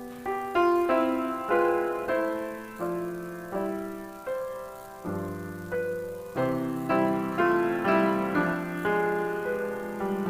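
Piano playing slow chords, each struck and left to fade, with deeper bass notes coming in about five seconds in and the chords coming more often after that.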